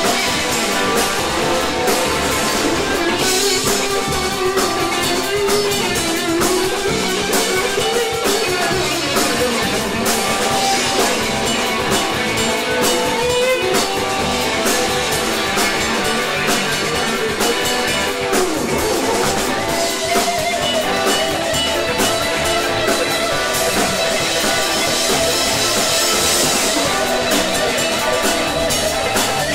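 Live rock band playing: electric guitars, bass guitar, drum kit, keyboard and congas, with a lead electric guitar melody that slides up and down in pitch.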